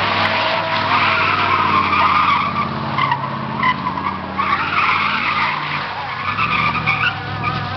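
1980 Chevrolet Caprice Classic doing donuts: its tyres screech in repeated surges over the steady drone of its engine.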